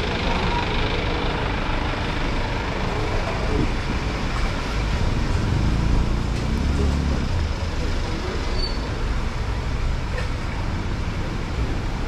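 Steady street traffic noise, with a motor vehicle's low engine rumble swelling louder for a couple of seconds around the middle.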